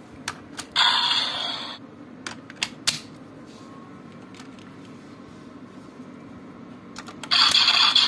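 Plastic clicks of a buckle piece being pulled out and snapped into a Bandai DX Powered Builder Raise Buckle toy, with electronic sound effects from the toy's speaker about a second in and again near the end.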